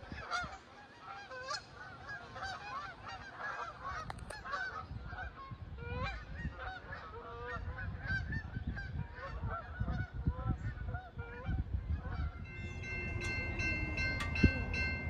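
A flock of birds calling, many short overlapping calls at once. About three-quarters of the way through, a train's horn begins sounding a steady multi-note chord over a low rumble.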